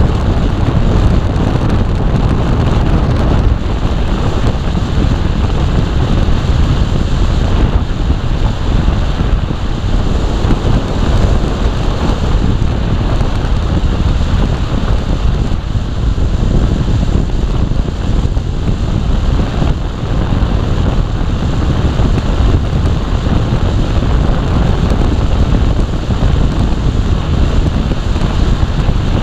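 Steady, loud wind noise buffeting the microphone of a camera on a moving motorcycle, with the rush of the ride under it.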